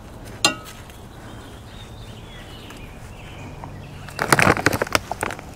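Rustling and crunching as a gloved hand stirs fertilizer into the potting soil of a hanging basket, a short dense burst about four seconds in, after one brief sharp sound near the start.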